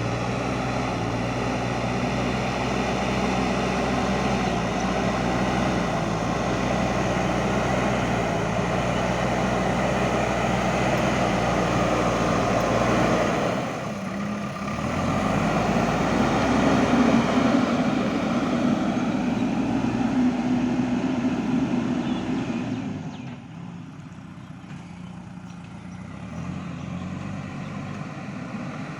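JCB backhoe loader's diesel engine running under working load. It dips briefly about halfway, runs harder for several seconds, then drops back to a quieter, lighter running level near the end.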